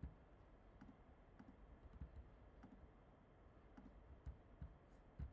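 Faint, irregular computer mouse clicks, about nine short clicks, over near-silent room tone.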